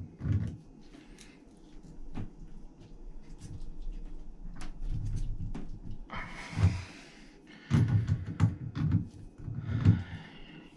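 Lineman's pliers clamped on the stem of a Delta 1300/1400-series shower cartridge as it is twisted and worked in its valve body: a run of metal clicks, knocks and low thumps, with two longer rasping noises about six and ten seconds in.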